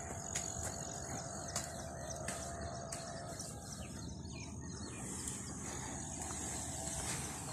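Rural farmland ambience with distant bird calls and a thin, high steady whine that stops about a second and a half in, over a low rumble.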